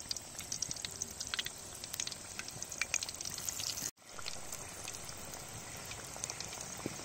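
Samosas deep-frying in hot oil: a steady sizzle full of small pops and crackles, which cuts out briefly about four seconds in.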